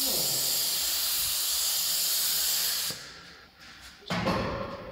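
Compressed-air spray gun hissing steadily as it sprays activator onto a water-transfer printing film floating in the dip tank, cutting off about three seconds in. A brief louder noise follows near the end.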